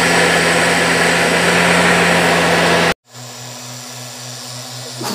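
STIHL backpack mist blower's small two-stroke engine running steadily close by. The sound cuts off abruptly about three seconds in, leaving a quieter low engine hum that throbs a few times a second.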